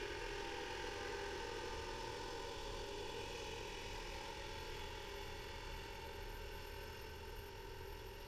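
Engine of a track maintenance machine running as it drives away along the rails, a steady hum that slowly fades.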